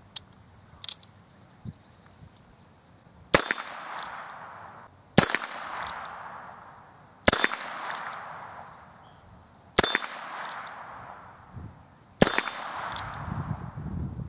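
A Heritage Rough Rider .22 single-action revolver fires five shots, one about every two to two and a half seconds, each followed by the ring of a steel swinger target being hit. A few light clicks come before the first shot.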